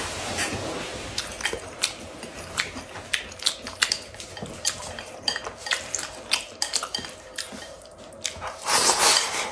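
Eating from a rice bowl: a utensil gives many small clicks against the bowl, with chewing, and a louder scraping stretch near the end.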